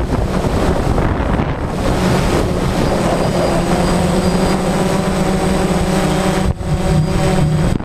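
DJI Phantom quadcopter's motors and propellers buzzing steadily in flight, heard close up from the camera carried on the drone, with wind noise on the microphone. The buzz dips briefly about six and a half seconds in.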